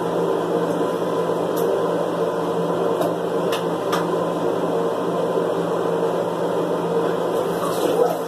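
A steady mechanical hum that holds one level throughout, with a few faint clicks about three to four seconds in.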